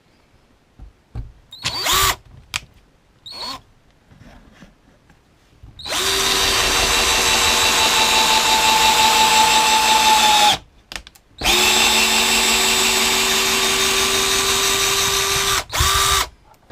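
Parkside PBSA 12 D4 12 V cordless drill-driver in its low-speed gear (speed 1), driving a screw: two short trigger blips, then the motor runs steadily at an even pitch for about four seconds, stops, runs again for about four seconds, and gives one more short burst near the end.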